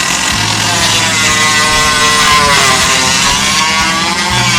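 Dremel rotary tool running at high speed and grinding the edge of a hole a little bigger. Its high whine dips in pitch as it bears into the material, about two and a half seconds in and again near the end.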